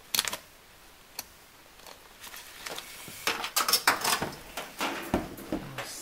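Multimeter's rotary selector dial clicking as it is turned to the 700-volt AC range, then a run of plastic clicks and clatter as the meter and its test leads are handled.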